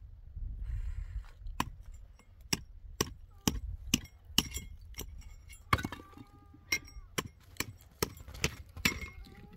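Pieces of broken concrete block and stone knocking and clinking together as they are handled, in a steady string of sharp clicks about two a second.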